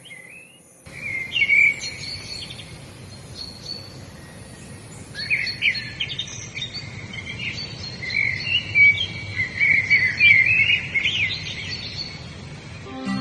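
Several songbirds chirping and singing in quick, varied phrases over a low steady outdoor background, with a thin high hiss that fades out about halfway through.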